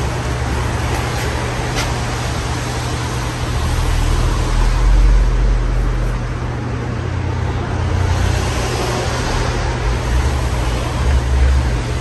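Casablanca Spirit of Saturn ceiling fan running with four blades: a steady rush of moving air with an uneven low rumble underneath.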